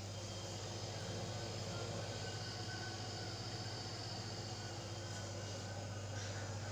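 Refrigerator compressor running with a steady low hum while the fridge is charged with freon.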